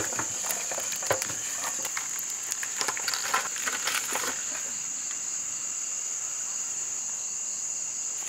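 Steady, high-pitched chorus of night insects, unbroken throughout. Over it, in the first half, come scattered light taps and rustles as sliced onions drop onto the roasted goat lying on a banana leaf and the meat is handled.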